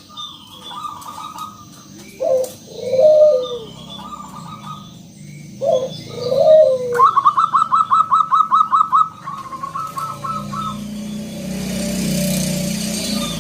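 Zebra doves cooing: several low, bending coos, then a fast run of about a dozen clipped higher notes around the middle, with other birds chirping.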